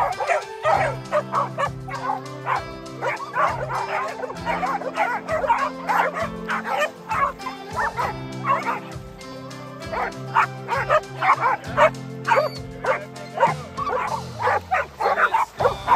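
Several dogs barking and yipping over and over, with background music of held chords underneath.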